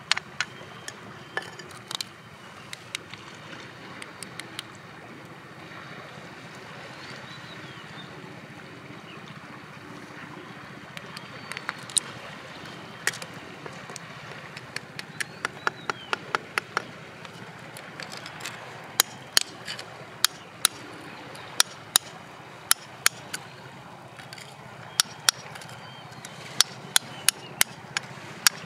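Geologist's hammer tapping a steel chisel into crumbly weathered rock: sharp clicks in short irregular runs. They are sparse in the middle and come faster and more regularly near the end.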